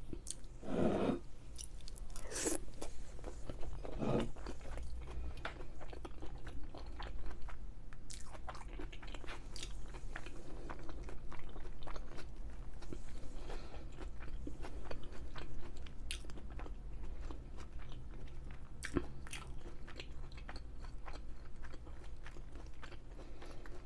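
A person chewing and biting food close to the microphone, most likely a beef-filled stuffed pepper. Many small wet mouth clicks and soft crunches run throughout, with a few louder mouth sounds in the first few seconds.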